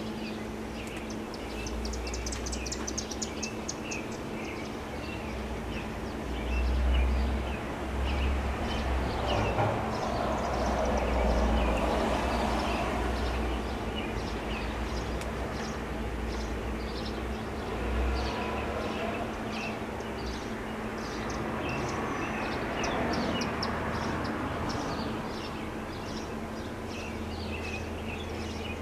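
Federal Signal STL-10 siren coasting through its long winddown after the noon blast, a low faint steady hum. Birds chirp over it, and low rumbles on the microphone are loudest from about 6 to 13 seconds in.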